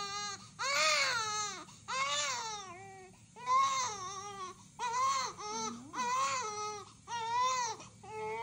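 Newborn baby crying in a run of wails, about one a second, each rising and falling in pitch, while being wiped with a washcloth during its first bath.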